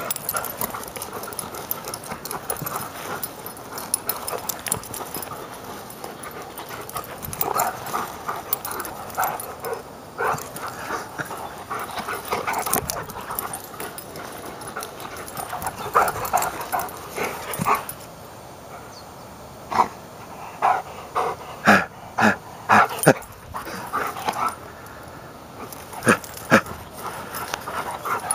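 Greyhound making short calls while it plays, with louder, sharper calls for a spell about two-thirds of the way through.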